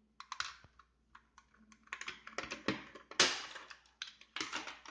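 Irregular plastic clicks and rattles of a spring airsoft pistol being taken apart, with a small screwdriver working on it and the slide being lifted off the frame. The loudest click comes a little after three seconds in.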